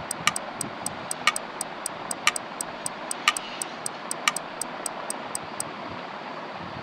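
Clock-ticking sound effect: light ticks about four a second with a louder tick once each second, stopping shortly before the end, over a steady hiss.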